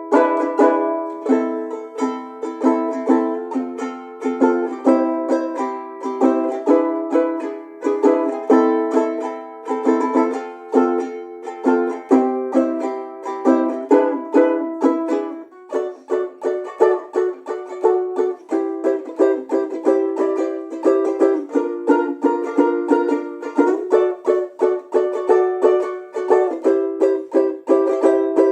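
Martin Romas BP-1 RD banjolele, a ukulele with a banjo-style drum body and a stretched membrane under the bridge, being strummed and plucked in a continuous run of chords and notes, with a bright, percussive attack. About halfway through the playing drops off briefly, then a new passage starts.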